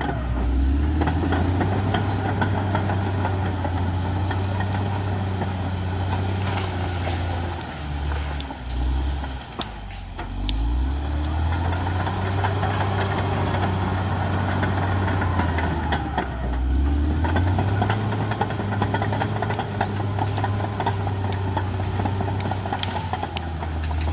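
Caterpillar D6R XL bulldozer's diesel engine running hard. The engine note drops and shifts briefly about eight to eleven seconds in, and again around sixteen seconds, before it steadies again.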